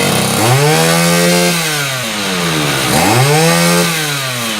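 Two-stroke brush cutter engine revved twice: it rises from idle, holds high briefly, then falls back to idle each time. The carburettor has just been adjusted, and the engine picks up responsively and settles back without stalling.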